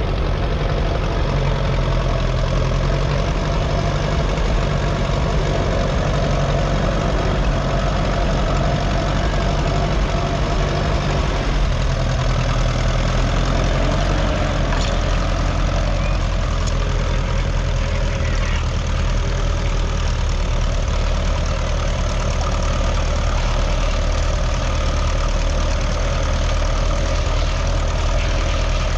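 Ferguson TED20 tractor's 2.1-litre four-cylinder petrol/TVO engine running at a steady, even note, which shifts slightly about twelve seconds in.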